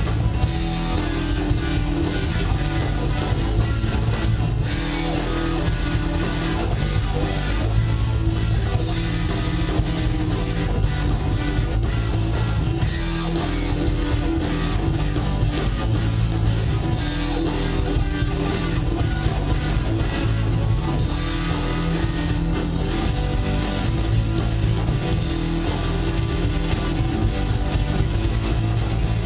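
Live rock band playing an instrumental passage: electric guitars over a drum kit, loud and continuous.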